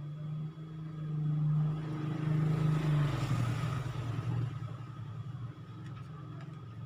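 Engine of a passing motor vehicle that swells to its loudest about three seconds in, then fades.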